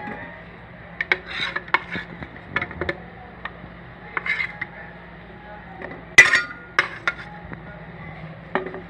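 Metal spoon clinking and knocking against a rice cooker's inner pot as sweet potato slices are turned in melted butter. The clinks come scattered and irregular, the loudest about six seconds in.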